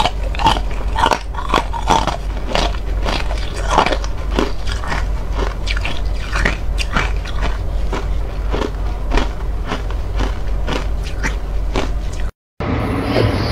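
Freezer frost being crunched and chewed in the mouth, picked up close by a clip-on microphone: irregular crisp crunches, several a second. The sound cuts out abruptly near the end.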